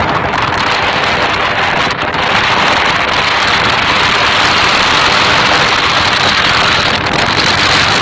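Strong wind blowing, a loud steady rushing noise.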